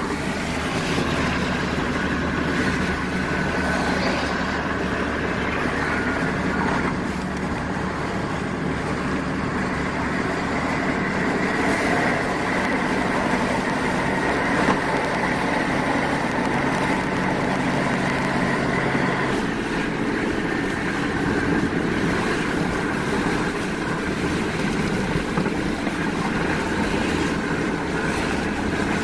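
Steady road noise and engine drone inside a pickup truck's cab cruising at highway speed, about 60 mph.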